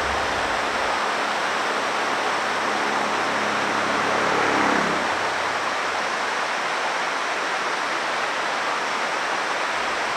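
Waterfall running steadily: an even rush of falling water, swelling slightly about halfway through.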